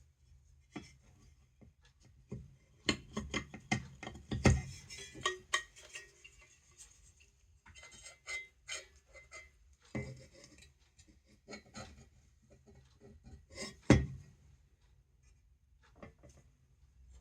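Small metal parts of an electric blower motor being handled and fitted together: scattered clicks, taps and scraping, with two sharper knocks about four and a half and fourteen seconds in.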